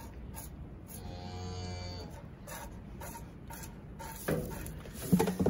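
A cow moos once, low and steady for about a second, while milk is hand-squirted from her teats into a plastic calf bottle in short hissing strokes about twice a second. A couple of louder short noises come near the end.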